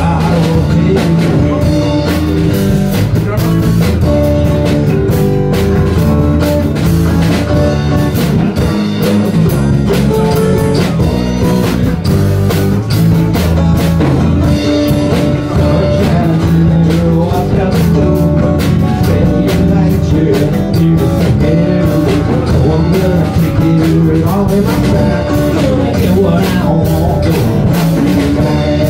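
A rock band playing live, with guitar and a drum kit keeping a steady beat.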